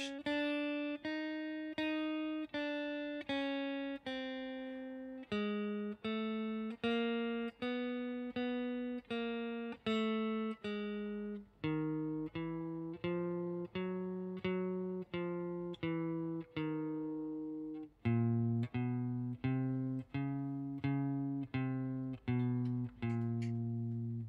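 Clean electric guitar, a Stratocaster-style solid-body, playing a four-finger chromatic exercise one picked note at a time at an even, slow pace of a little under two notes a second. The notes step fret by fret along one string, then move down to a lower string every few seconds, ending on low notes.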